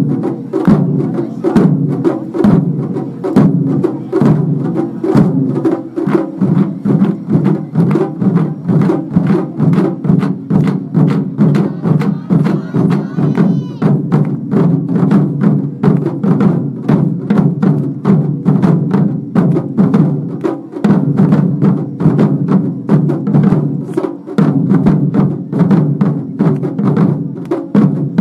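Japanese taiko drums (wadaiko) played in a fast, driving rhythm of rapid strikes, with sharp clicks among the drumbeats. The deep drumming drops out briefly twice in the second half.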